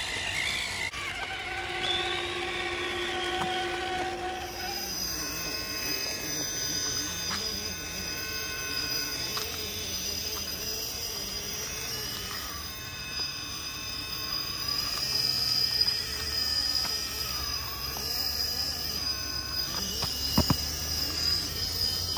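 Radio-controlled scale rock crawler's electric motor and gears whining as it climbs rock, the high whine shifting pitch every few seconds with the throttle. A single sharp knock near the end, a tyre or chassis striking the rock.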